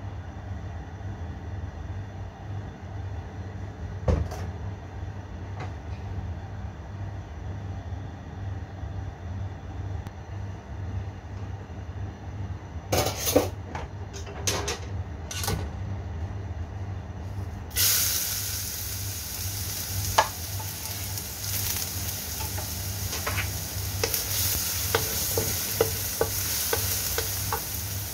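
Minced garlic hitting hot oil in a wok and sizzling steadily from about two-thirds of the way in, with pops and a wooden spatula stirring. Before it there is a steady low hum under the heating wok, and a few sharp crackles as the oil goes into the hot pan.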